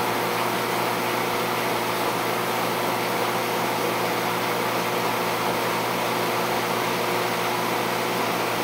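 Steady mechanical hum with a constant hiss from running aquarium equipment, unchanging throughout.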